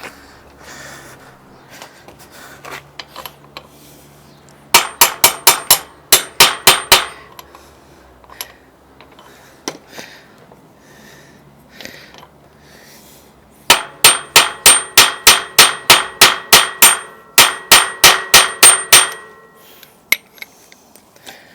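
Hammer blows on a crank puller threaded into a stuck bicycle crank arm, metal on metal, each strike ringing. There are two runs of quick strikes, about three a second: a short run of about eight some five seconds in, and a longer run of about eighteen from about fourteen seconds in.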